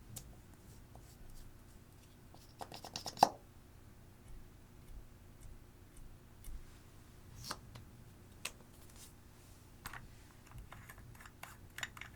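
Hands working slime and eyeshadow: scattered soft clicks and crackles, with a quick run of crackling and one sharp snap about three seconds in.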